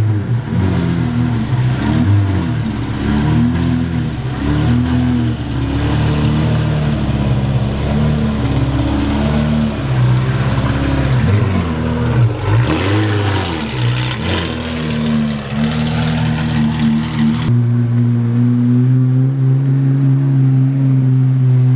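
Pagani Zonda HP Barchetta's V12 driven at low speed and revved, its pitch rising and falling over and over, with one bigger rev about halfway through. Near the end the sound switches suddenly to a steady, even engine note.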